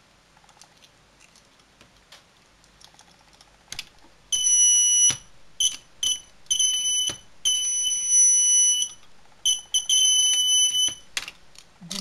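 Alarm horn of a snap-together electronics kit circuit sounding a high, shrill buzzing tone in several on-off bursts, starting about four seconds in: the burglar-alarm circuit triggering with a 5.1 kilohm resistor in the setup. Before it, faint clicks of clip leads being handled.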